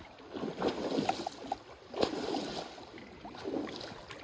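Stream water sloshing and splashing in uneven, irregular spurts.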